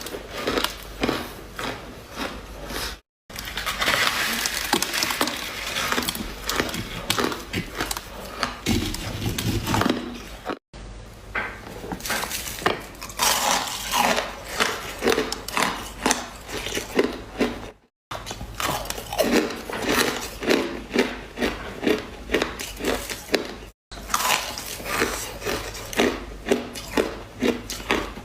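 Ice being bitten and chewed close to the microphone: crackly crunching and repeated chewing crunches, about two to three a second at times, broken by several abrupt short silences.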